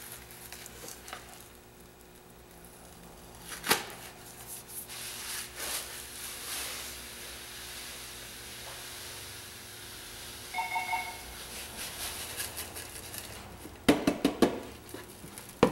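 Epsom salt poured from a cardboard carton into a plastic tub: a steady granular hiss lasting several seconds, after a sharp click about four seconds in. A few sharp knocks near the end as the emptied carton is handled.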